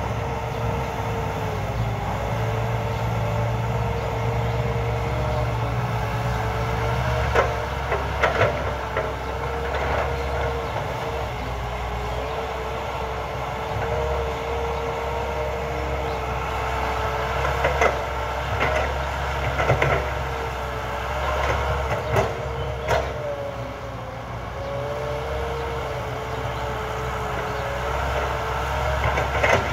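Caterpillar hydraulic excavator running steadily while digging and loading mud into a dump truck: a low diesel rumble with a whine that wavers up and down as the boom and bucket move, and scattered knocks and clanks from the bucket, loudest at about 7, 8, 18, 20 and 23 seconds in.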